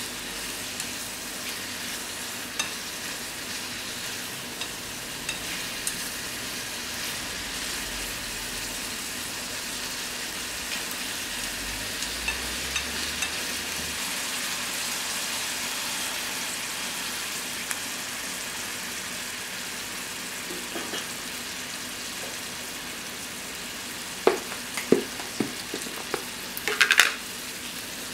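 Thinly sliced beef and onions sizzling in a small skillet over a gas flame, stirred at first, then left to fry with a steady hiss. A few sharp clicks and taps come near the end.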